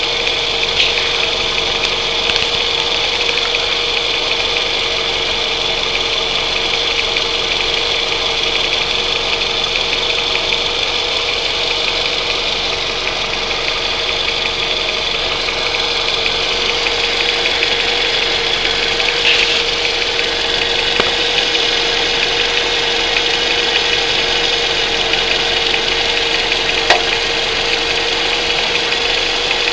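Car engine idling with a steady knocking from the accessory drive belt's tensioner pulley, the sign of a worn tensioner pulley.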